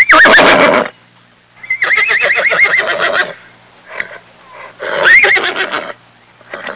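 A horse neighing three times: a short neigh at the start, a long quavering whinny from about a second and a half in, and another neigh about five seconds in.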